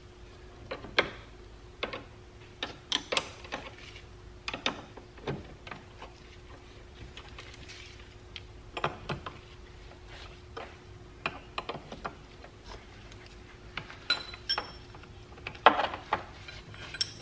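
Irregular metallic clicks and clinks of a combination wrench working the nuts off a car battery's stud-type terminals, with the cable ends being handled as the battery is disconnected.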